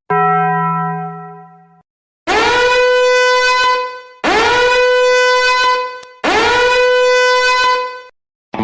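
Meme sound effects: a short low tone that fades out, then three identical long horn-like blasts, each sliding up into the same held pitch.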